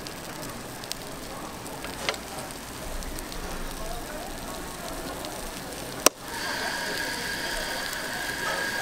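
Food-stall clatter: a metal spoon scraping and clicking against a bungeoppang mold plate while cheese is spread, over a steady background hum. About six seconds in comes a sharp click, and after it a steady high whine sets in.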